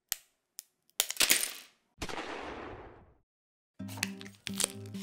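Dalgona honeycomb sugar candy snapped apart by hand: a few sharp cracks in the first second and a half, then a longer noisy sound about two seconds in. Background music comes in near the end.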